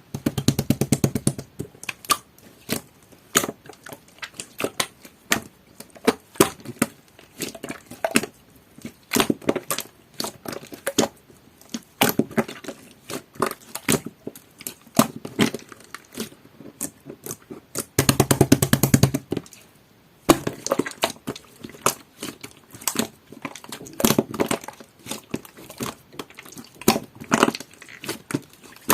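Jelly-textured slime being squeezed and poked by hand, giving a steady run of wet clicks and pops, with fast rattling strings of pops at the start and again about two-thirds of the way through.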